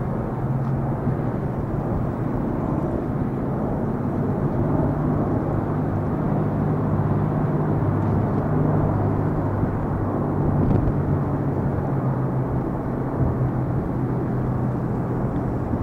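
A steady low engine drone over a wash of rumbling noise, its hum shifting slightly in pitch about halfway through.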